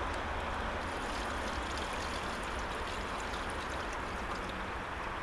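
Sugar water poured in a steady, continuous stream into a beehive's feeder box.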